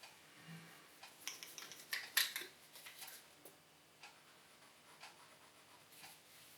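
Short bursts of scratching and rubbing with light clicks, about one to three and a half seconds in, then a few faint ticks: small plastic model-railway parts being handled and worked by hand.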